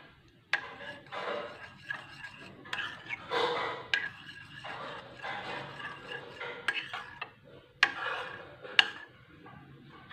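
Metal spoon stirring a thin, milky mixture in a ceramic bowl: irregular scraping against the bowl, with several sharp clinks where the spoon strikes its side.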